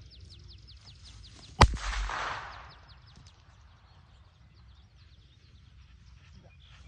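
A single gunshot: one sharp crack about a second and a half in, followed by a short echo that dies away within a second. Faint, rapid high ticking continues in the background.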